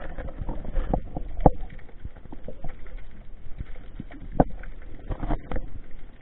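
Underwater sound heard by a diver's waterproof camera: a low, muffled water rumble with scattered sharp clicks and knocks, the loudest about a second and a half in and just past four seconds.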